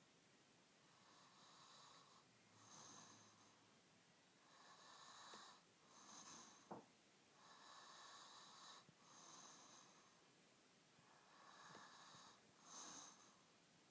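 Faint, slow snoring of a sleeper, in and out breaths in pairs about every three and a half seconds, with a short sharp click about seven seconds in.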